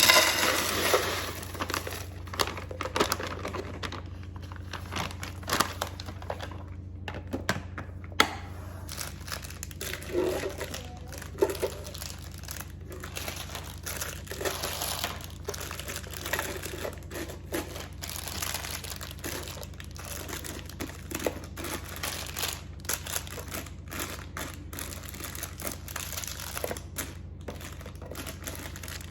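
Crinkling and rustling of something being handled, with scattered light clicks and taps, over a low steady hum.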